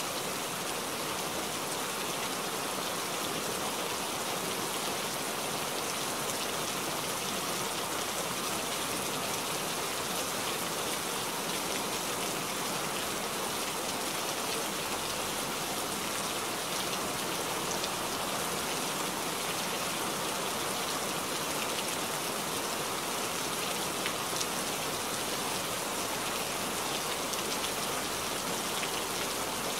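Steady rain falling, an even, unbroken wash of drops at a constant level.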